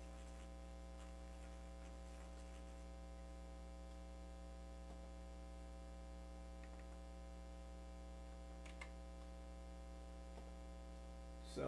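Steady electrical mains hum with a faint click about nine seconds in.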